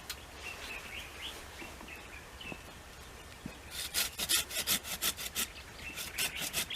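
Hand saw cutting through wood in quick back-and-forth strokes, about five a second. It starts a little past halfway and runs in two spells with a brief pause between them.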